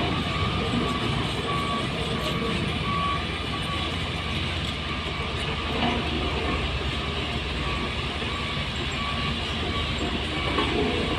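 Dump truck's diesel engine running with a steady low rumble, while a reversing alarm beeps in short repeated tones during the first few seconds and again near the end.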